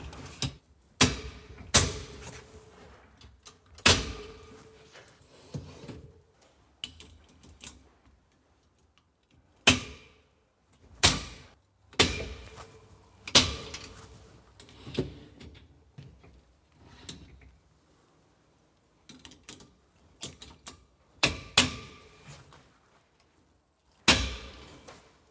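Kitchen corner carousel's baskets and runners being handled: runners pulled out and baskets clipped onto the runner hooks, giving a string of sharp clicks and knocks a second or two apart.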